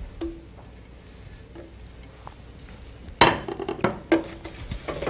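Spices frying in hot ghee in an enamel frying pan: after a quieter start with a few faint clinks, a spoon starts stirring and scraping in the pan about three seconds in, over a steady sizzle.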